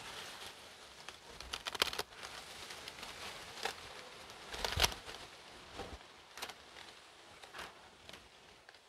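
Scissors snipping through the stems of bronze head leaf lettuce, with the crisp leaves crackling and rustling as they are gathered in the hand. Irregular sharp snips and crunches, a quick cluster about one and a half seconds in and the loudest about halfway through.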